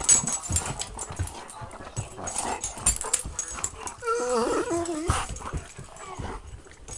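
A dog scuffling and rustling close to the microphone, with many short knocks and thumps. A little past halfway comes one wavering whine that slides down in pitch.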